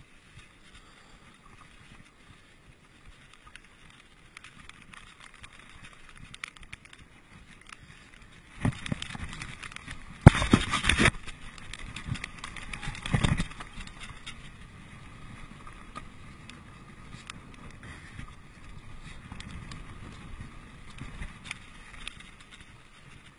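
Mountain bike riding over a dirt forest trail: tyres rolling on dirt and the bike rattling over bumps, with rushing noise. A louder stretch of jolts and rushing comes about nine to eleven seconds in, and another about thirteen seconds in.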